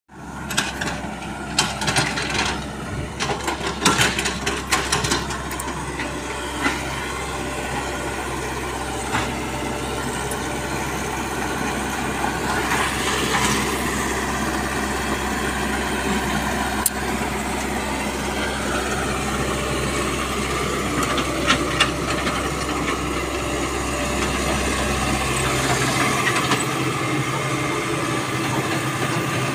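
Diesel engine of an E120B tracked hydraulic excavator running steadily while it digs, with sharp metallic clanks and knocks crowded into the first several seconds and a few scattered ones later.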